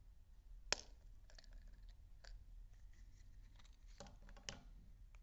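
Hands opening a chocolate surprise egg and handling its plastic toy capsule: faint crinkling and small clicks, with one sharp click under a second in and a quick cluster of clicks near the end.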